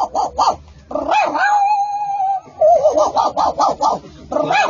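A man imitating a small dog with his voice: quick yaps, about six a second, then a long held whine from about one to two and a half seconds in, then more rapid yaps.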